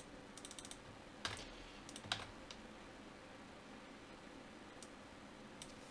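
Computer keyboard typing, faint: a quick run of keystrokes at the start, then a few scattered single key presses with gaps between them.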